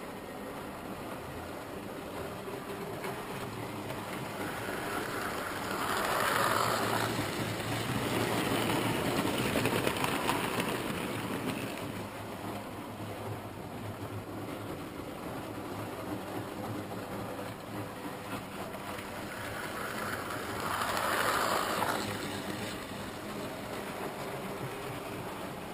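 Hornby model train running around the layout: a steady electric motor hum and the wheels running on the track, getting louder as it passes close about six seconds in and again around twenty-one seconds in.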